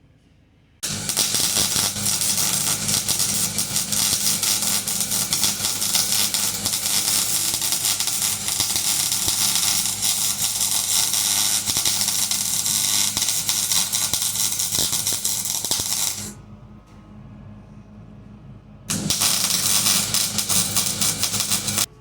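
Electric arc welding on the steel base: a dense crackling sizzle over a steady buzz, in one long run of about fifteen seconds and then a shorter run of about three seconds after a pause.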